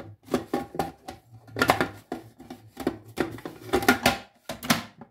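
Clear plastic lid and feed-tube pusher of a food processor being fitted onto the bowl: a quick run of hard plastic clicks and knocks as the parts are handled and snapped into place.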